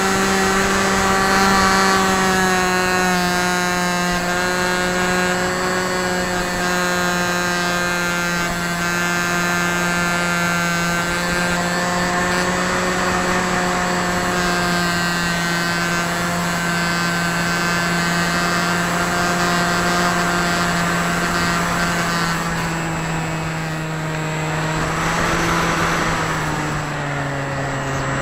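Hawking 2826 2200 Kv brushless outrunner motor driving a 6x4 APC pusher prop in flight, a steady high whine whose pitch sags slowly and then slows in steps near the end. A brief rush of air comes shortly before the end.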